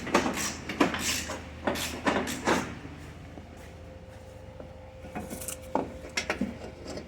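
Hand tools and loose metal parts clicking and clanking at irregular intervals, with a quieter stretch in the middle and a second cluster of clicks near the end.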